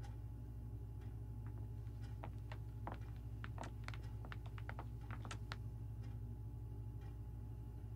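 A clock-like tick about once a second over a low steady hum, with a run of quick, irregular light clicks in the middle.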